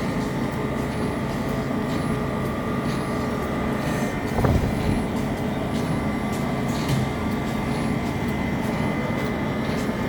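Ice cream plant machinery running steadily: a low hum under high steady whines. About four and a half seconds in there is a thump, and one of the whining tones stops.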